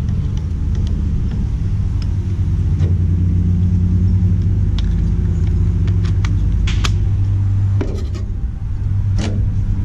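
A loud, steady low rumble with a hum, swelling slightly in the middle. Over it come a few short, light clicks and taps as the guard and battery of a cordless angle grinder are handled.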